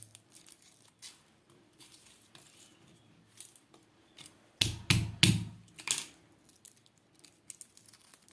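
Garlic cloves being peeled by hand: the papery skins crackle and tear in small scattered snaps, with a louder burst of crackling a little past halfway.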